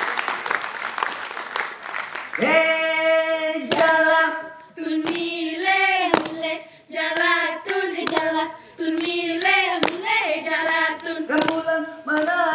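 Audience applause for about the first two seconds. Then the Saman dancers chant together in unison, in held notes broken by sharp hand claps and slaps.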